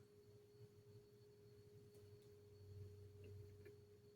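Near silence: room tone with a faint steady electrical hum and whine.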